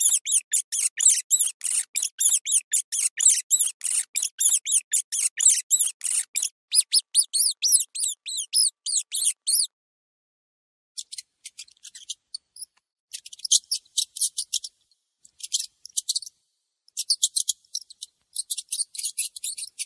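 Mouse squeaking: high-pitched chirps in a fast, even run of about four a second, then, after a short pause about halfway through, short scattered clusters of quick squeaks.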